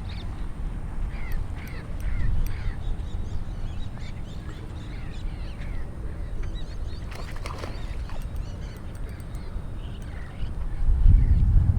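Small birds chirping in short repeated calls over a steady low rumble, with a brief rattle about seven seconds in and the rumble swelling near the end.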